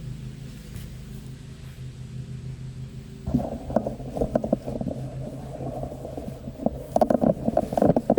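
Steady low engine hum throughout. From about three seconds in, loud rough rustling and scraping with sharp clicks, which fits plants, soil and wood-chip mulch being handled close to the microphone while potatoes are dug up.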